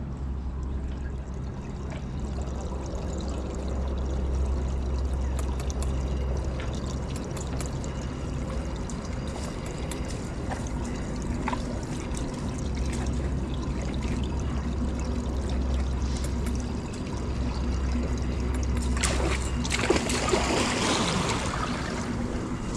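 Water trickling steadily over a low rumble, then about nineteen seconds in a pygmy hippopotamus enters its pool with a splash that lasts a few seconds.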